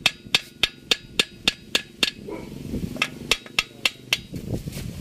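Small hammer tapping on the cast-iron deck of an Isuzu 4BC2 engine block at the edge of a cylinder bore: sharp metal-on-metal strikes, about three or four a second, with a pause about two seconds in and again near the end.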